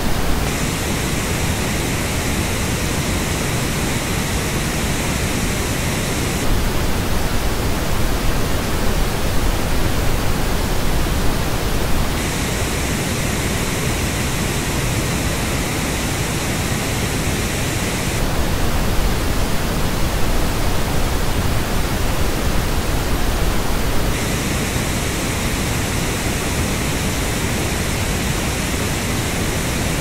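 Steady pink noise test signal that switches about every six seconds between the flat original and the same noise as reproduced by Grado SR60X open-back headphones. The headphone passes sound brighter and hissier, with its emphasis in the upper mids and treble, and come in just after the start, about 12 seconds in and about 24 seconds in.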